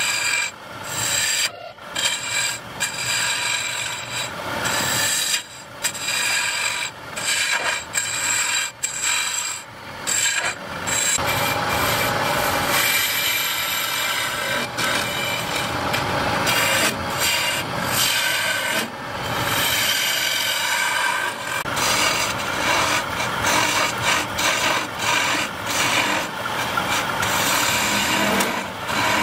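Hand-held gouge cutting into a spinning wooden workpiece on a lathe: a loud scraping, shaving sound over the steady whine of the running machine. The cuts break off briefly several times in the first half, then run on steadily.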